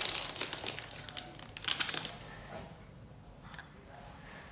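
Packaging crinkling and small clicks of toy kit pieces being handled, dying down about two seconds in to a few faint ticks.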